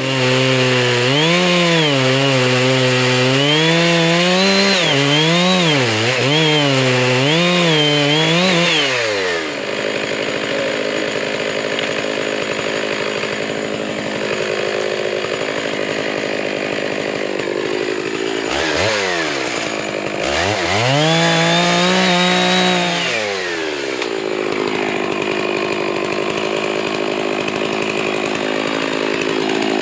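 Stihl MS660 two-stroke chainsaw running hard, its engine pitch rising and falling over and over for about nine seconds, then dropping to a lower steady running. About twenty seconds in it revs up again for a few seconds and settles back down.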